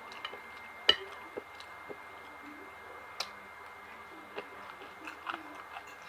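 Close-miked chewing and eating, with scattered sharp clicks, the loudest about a second in.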